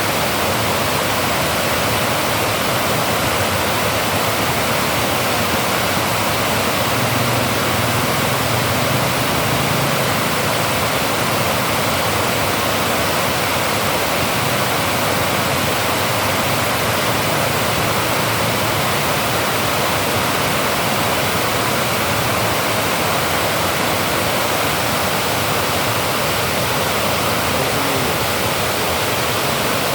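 Dam water rushing over a spillway, a steady loud hiss of falling and churning water.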